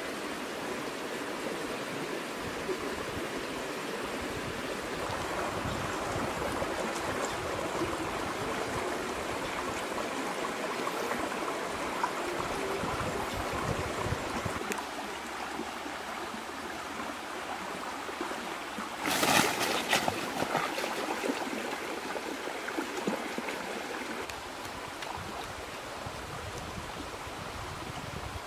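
Shallow stream running over rocks, a steady rush of water. About two-thirds of the way through there is a brief loud burst of noise.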